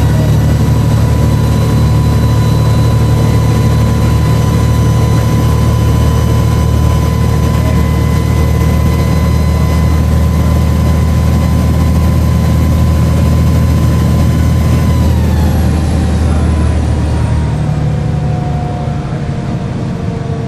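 Volvo B7LA bus's turbocharged diesel engine running at steady speed with a loud, whiny turbo whistle held on one pitch; about three-quarters of the way through, the whistle falls in pitch and the engine note drops as the power comes off.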